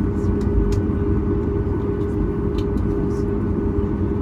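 Steady low rumble and hum inside the cabin of a Boeing 737 MAX 8-200 on the ground before takeoff, with a few faint clicks.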